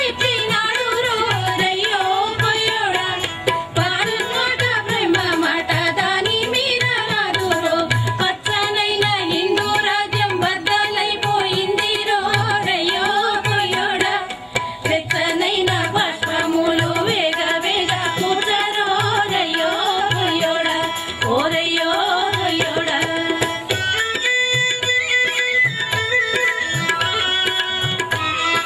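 Women singing a Telugu patriotic song together to a steady tabla beat.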